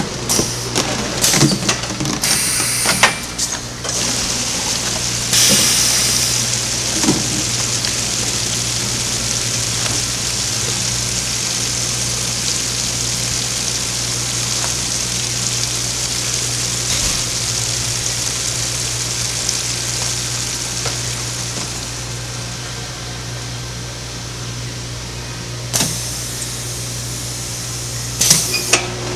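Automatic overflow liquid filler running a fill cycle over the constant hum of the machine. First plastic jugs clatter and knock as they are set on the conveyor. Then a steady rushing hiss runs for about twenty seconds while the jugs fill through the nozzles, and it ends with a clunk.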